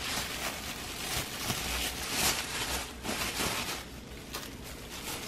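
Thin plastic bag rustling and crinkling in irregular bursts as hot roasted chiles are dropped into it.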